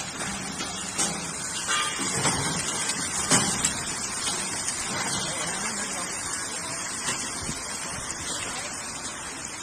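Continuous mesh-belt frying machine running, with a steady hiss of chips frying in hot oil. A few sharp knocks come about a second and three seconds in.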